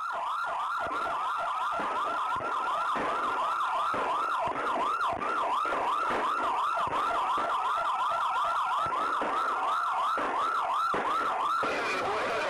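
Several police sirens in a fast yelp, overlapping and out of step, at a steady level. A hiss joins near the end.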